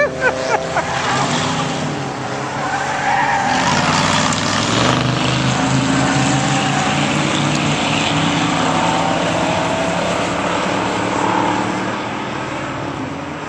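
Several racing cars going through a chicane, their engines rising and falling in pitch as they brake and accelerate, with tire squeal as they turn. The sound builds about a second in and fades near the end as the cars pull away.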